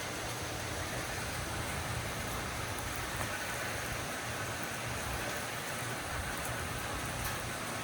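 Steady heavy rain falling, with an uneven low rumble underneath.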